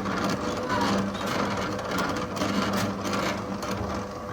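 A small motor-driven machine running with a steady hum and fast mechanical chatter.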